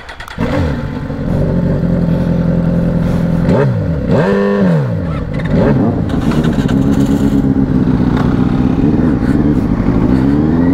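Benelli motorcycle engine idling, revved in two quick throttle blips about four seconds in, then pulling away as the revs climb near the end.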